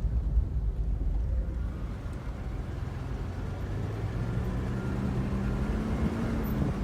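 Car engine running with low road rumble while driving. About two seconds in a steady engine hum comes up; its pitch rises slightly near the end, then drops.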